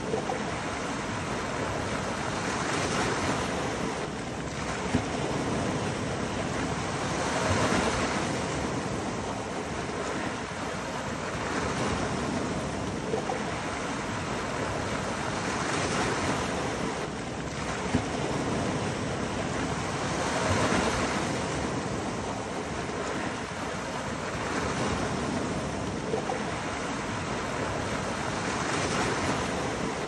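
Small sea waves breaking and washing over a low rocky shore: a steady rush of surf that swells every four to five seconds as each wave comes in, with a few brief sharp clicks.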